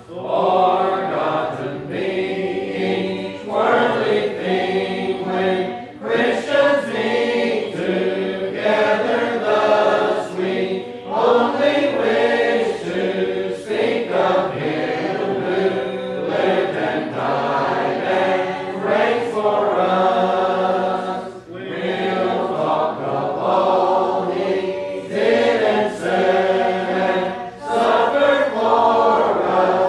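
A congregation singing a hymn together without instruments, in long held notes, line by line with short pauses between phrases.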